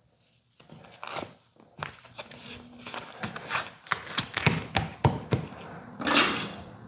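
Double-sided woodworking tape being pulled off its roll and pressed down by hand: scattered small clicks and taps, with a longer scratchy rasp of tape peeling just after six seconds in.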